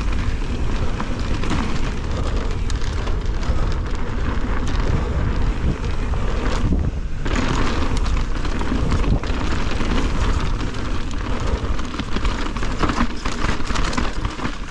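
Wind rushing over the camera microphone and a downhill mountain bike's tyres and frame rattling and rumbling over rough trail at speed. The noise briefly drops away about seven seconds in.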